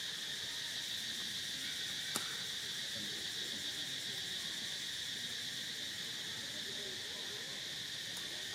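Steady high-pitched drone of an insect chorus, with one faint click about two seconds in.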